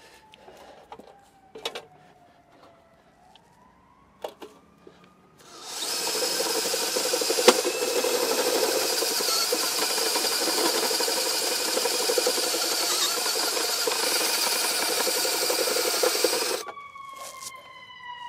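Cordless drill with a step bit cutting a hole through the sheet-metal face of an electrical disconnect box: a steady, loud grinding that starts about five seconds in, runs for about eleven seconds and stops suddenly. A few light knocks and clicks of handling come before it.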